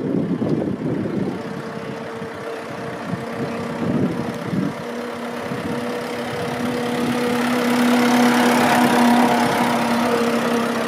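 Vintage car's engine running with a steady hum as the car drives up and passes close by, growing louder to a peak about eight seconds in and then easing off.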